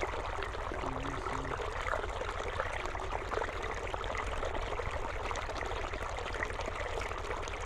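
Water running and trickling steadily over rock, with many small splashy ticks and a low steady drone underneath.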